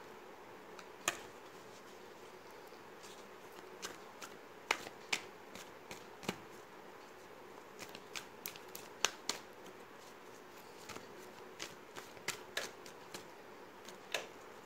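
Deck of oracle cards being shuffled by hand: an irregular run of sharp card slaps and flicks, the sharpest about a second in and about nine seconds in, over a faint steady hum.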